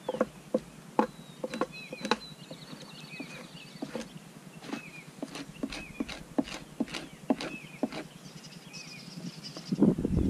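Steel knife blade scraping the last bits of fat and meat off a deer hide stretched over a pine-log fleshing post, in short, irregular strokes. A bird chirps again and again in the background. A louder handling rustle comes in near the end.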